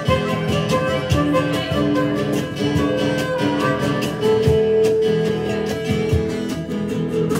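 Live acoustic band playing an instrumental passage: acoustic guitars strumming a steady rhythm under a harmonica, which holds one long note from about four seconds in.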